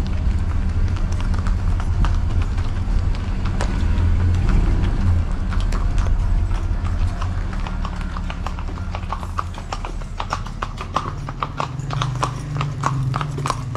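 Horse hooves clip-clopping on hard ground in a steady run of clops that grows clearer in the second half, over a low rumble in the first half.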